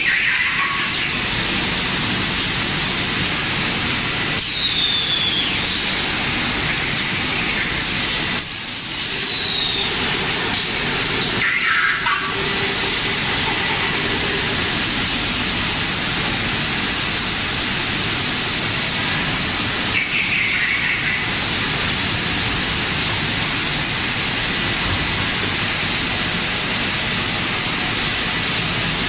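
PVC pipe extrusion line with its online belling machine running: a steady machine noise with a constant high whine through it. Short falling whines rise above it several times, the clearest about 4 and 8 seconds in.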